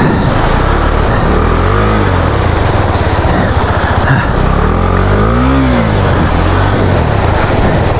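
Motorcycle engine revving as the bike is pushed and ridden up out of a rocky stream crossing. The revs rise and fall twice, about two seconds in and again past the middle, over the steady rush of fast-flowing water.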